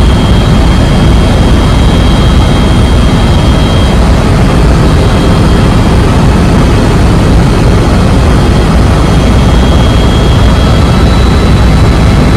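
Helicopter in flight, heard from inside the cabin: a loud, steady rotor and engine noise, heaviest in the low end. A thin high whine sits on top, fading a few seconds in and returning near the end.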